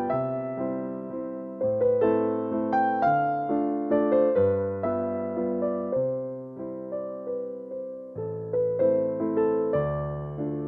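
Background piano music: gentle notes played in a flowing, repeating pattern, each note struck and fading.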